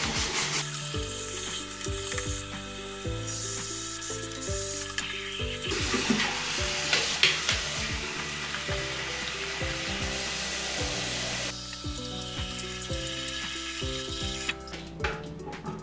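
Tap water running and splashing onto a metal mesh range-hood grease filter in a sink while it is rinsed and rubbed clean, the first rinse after a sodium percarbonate soak. Background music with a melody plays underneath.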